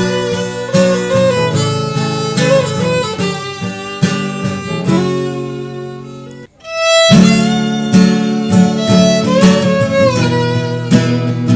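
Instrumental music with no singing. It fades away about six seconds in, and a new passage starts loud about a second later.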